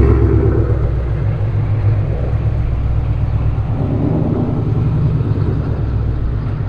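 S197 Ford Mustang's engine and exhaust with a steady low rumble as the car rolls slowly away onto a truck scale, the sound gradually fading as it moves off.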